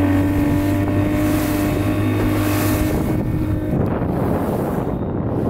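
Fishing boat's motor running steadily under way, its pitch creeping slightly upward, then fading out under wind buffeting the microphone about three and a half seconds in.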